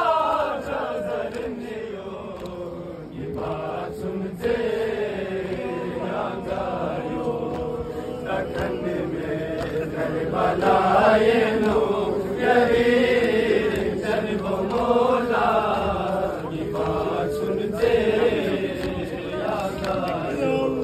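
Men's voices chanting a noha, the Shia lament sung in mourning for Imam Hussain during Muharram, in long, drawn-out sung lines.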